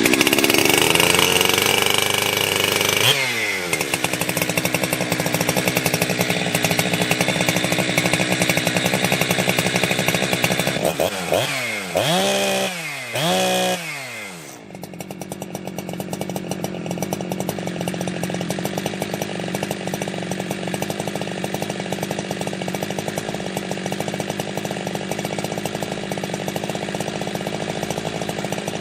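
Ported Jonsered 2071/2072 two-stroke chainsaw, with an exhaust mod and the decompression valve plugged, running fast just after its first start of the day. Its speed drops about three seconds in, it is revved up and down a few times around the middle, and it then settles into a steady idle.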